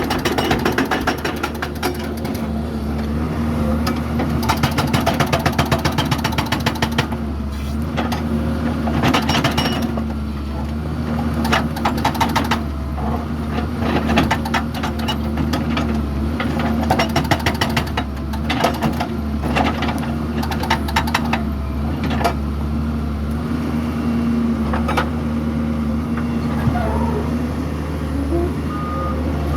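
Doosan DX140W wheeled excavator's diesel engine running steadily, broken by several bursts of rapid rattling clicks. A reversing alarm starts beeping near the end.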